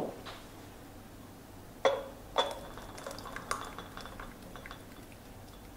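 A measuring jug knocking and clinking against a steel jam pan and glass jam jars as hot jam is scooped and poured. There is one knock at the start and two sharper knocks about two seconds in, then a scatter of light clinks and ticks.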